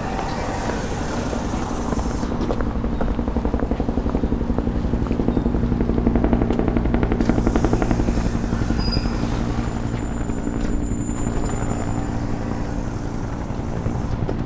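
Helicopter flying past, its rotor beating in rapid, even pulses over a low engine drone. It grows louder toward the middle and eases off toward the end.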